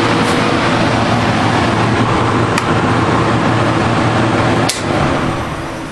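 Airco AC/DC stick welder switched on and running: a steady transformer hum with the rush of its cooling fan. There is a light tick about two and a half seconds in, then a sharper click near the end, after which the running sound begins to die away.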